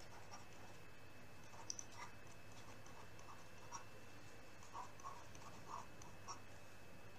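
Faint, scattered taps and scratches of a stylus writing on a digital pen tablet, over a low steady hum.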